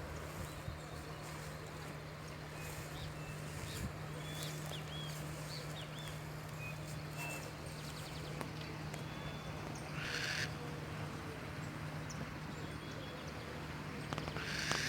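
Burrowing owl giving two short, raspy, hissing screeches, one about ten seconds in and another near the end, over a steady low hum and faint high chirps.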